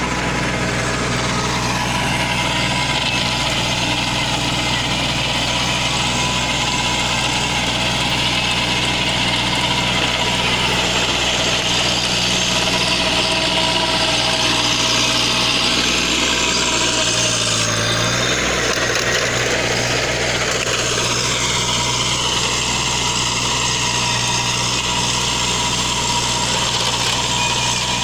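Kubota NeoStar A211N 21 hp compact tractor's three-cylinder diesel engine running steadily under load while it drives an earthing-up implement through the soil, with a brief change in the engine note about 17 seconds in.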